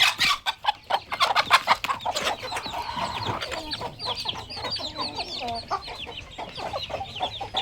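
Chickens clucking, with many short high chirps through the flock and a quick run of sharp clicks in the first few seconds.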